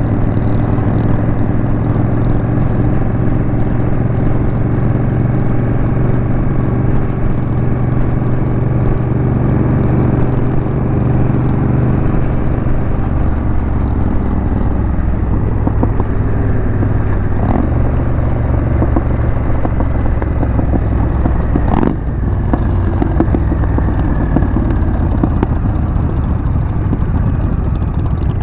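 Honda Rebel 1100 DCT's parallel-twin engine running while the motorcycle is ridden at a steady pace, with a steady engine note. About halfway through the note settles lower, and a single sharp click sounds a little after twenty seconds in.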